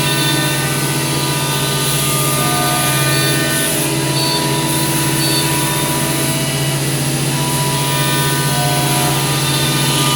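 CNC wood router with automatic tool changer running steadily, a constant machine hum and whine made of several unchanging tones.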